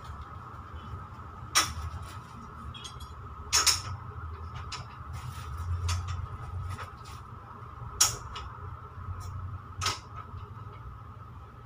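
Plastic-bagged packs rustling and clicking against metal display hooks as they are handled and hung on a shop rack, with four sharper clicks spread through and a steady hum underneath.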